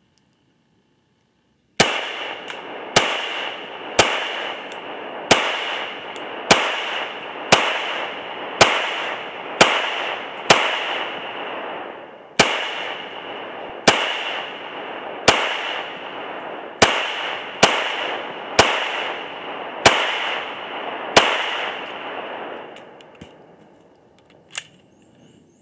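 Ruger P95 9mm semi-automatic pistol fired shot after shot at a steady pace, roughly one shot a second, about seventeen in all, each shot ringing out and echoing before the next. Firing stops a few seconds before the end, and a small click follows.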